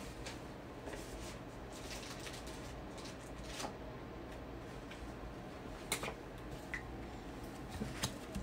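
Faint room noise with scattered light clicks and rustles of small objects being handled, with a few sharper clicks about halfway through and near the end.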